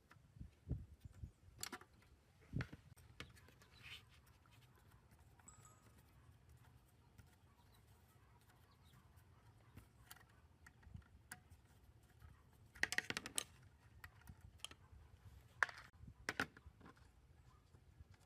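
Scattered clicks, taps and light knocks of tools and small parts being handled while working on an old amplifier, with a short burst of clatter about thirteen seconds in.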